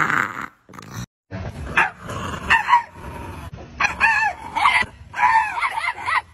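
A puppy yipping and yelping in a run of short rising-and-falling calls, several a second, from about two seconds in. It is preceded by a brief loud throaty vocal sound from a dog at the very start and then a short break.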